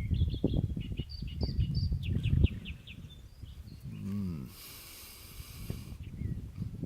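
Small birds chirping in short high notes, one rapid run of about six notes a couple of seconds in, over an irregular low rumble. About halfway through comes a brief rushing hiss.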